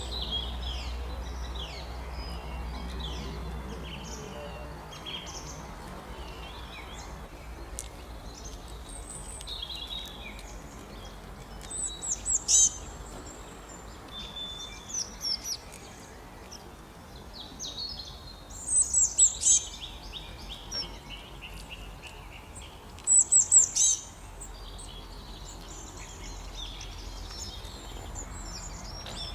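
Birds chirping and calling, with several loud bursts of four or five quick high notes standing out among softer chirps, over a low steady rumble.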